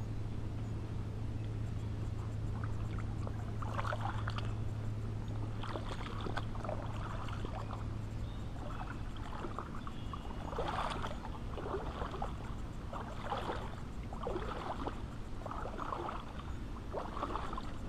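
Water sloshing around an angler's legs as he wades through a shallow, weedy pond, one swish roughly every second from about four seconds in. A low steady hum sits under the first half and fades out.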